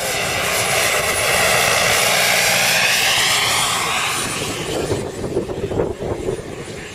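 Turbine-powered scale model Bell helicopter flying past: turbine whine and rotor noise with a rising-then-falling sweep as it passes, loudest a second or two in, then fading as it flies away.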